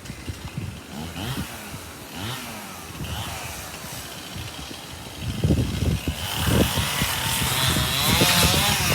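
Chainsaw engine revving up and down, its pitch rising and falling. From about six seconds in it runs much louder, with a wavering pitch.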